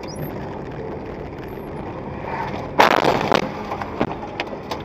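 Steady vehicle road noise, then nearly three seconds in a sudden loud collision impact, followed by several sharp knocks and clatters.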